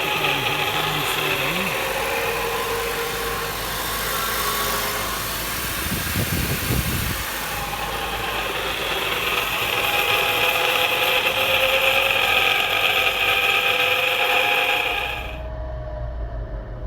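2014 Honda CR-V drivetrain turning on a lift with a scratchy, grinding whir like a wheel bearing, which the mechanic takes for a worn drive shaft center carrier bearing. The scratchy whir stops abruptly about fifteen seconds in, leaving a low rumble.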